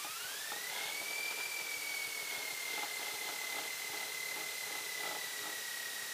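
Aviat Husky bush plane's engine and propeller running during taxi, heard from inside the cockpit under a steady hiss. A whine climbs steeply in pitch in the first second, then holds nearly level: the engine speeding up.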